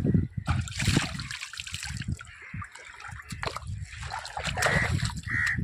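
Sea water splashing and trickling in irregular bursts.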